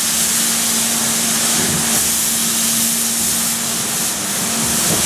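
Steam locomotive letting off steam in a loud, steady hiss, with a steady low tone underneath that stops near the end.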